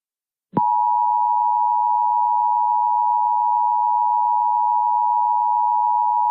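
Emergency Alert System two-tone attention signal (853 Hz and 960 Hz sounded together) starting with a short click about half a second in after silence, then holding as one loud, steady, unbroken tone. It is the signal that an emergency alert message follows, here a tornado warning.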